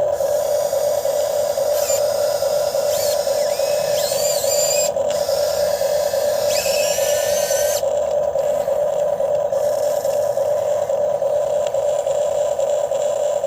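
Small electric motor of an RC excavator whining steadily at one pitch, with high, wavering, gliding whistles heard from about two to eight seconds in.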